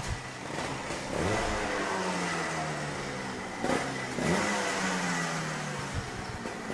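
Racing kart engines revving on a track, their pitch repeatedly climbing and dropping as they accelerate and slow, with one sharp drop and climb about four seconds in.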